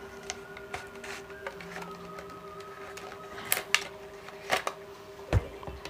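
Plastic blister packaging being worked out of its card sleeve: sharp crackles and clicks of the clear plastic tray, loudest in the second half, and one low knock near the end. A steady tone hums underneath.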